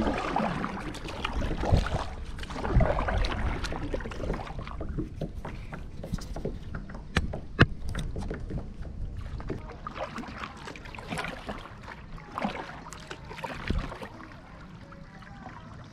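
Kayak paddle strokes dipping and splashing in lake water, one every second or so, with water dripping and lapping at the hull and a few sharp knocks of the paddle, the loudest a little past halfway.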